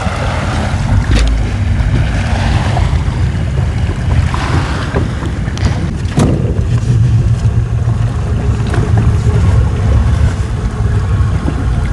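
Small fishing boat's motor running low and steady, with wind buffeting the microphone; two sharp knocks, about a second in and about six seconds in.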